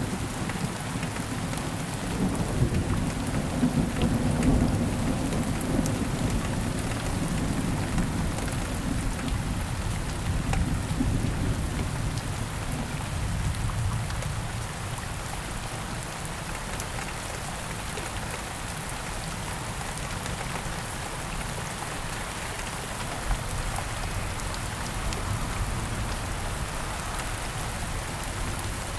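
Steady heavy rain with a long low roll of thunder rumbling through the first half, swelling and then dying away, leaving only the rain.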